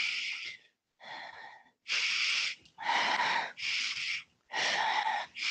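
A woman breathing hard and audibly, short hissing breaths in and out about once a second, with no voice, as she works through alternating knee bends in downward dog.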